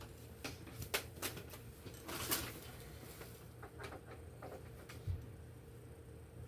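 Sharp clicks and light knocks from handling and fitting the reassembled Blue Sea 12-volt DC plug into place, several clicks in the first couple of seconds and a dull thump about five seconds in.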